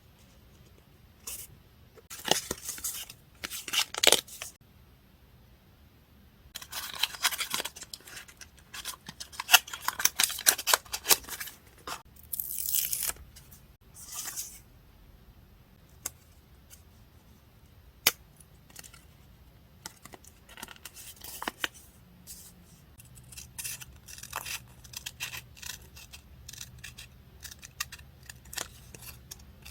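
Paper journaling work: scissors cutting paper and paper being torn and handled, in several rustling bursts, followed by a run of small clicks and taps.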